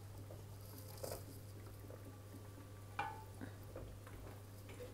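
Wooden spoon stirring drained tube pasta and butter in a stainless steel pot: soft squishing of the pasta, with a light knock of the spoon on the pot about a second in and a ringing knock about three seconds in.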